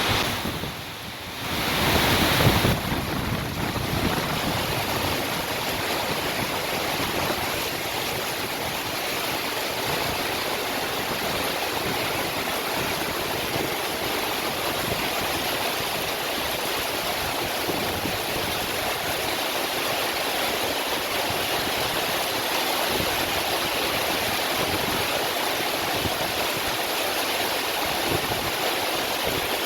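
Heavy rain pouring down, a steady even hiss of falling water. It dips briefly about a second in, then swells back.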